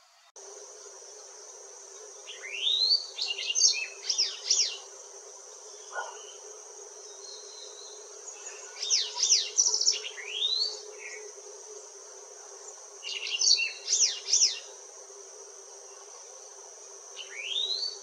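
White-browed wagtail singing: four short bursts of sharp whistled notes, each made of quick rising sweeps and fast downward strokes. A steady high-pitched insect drone runs underneath.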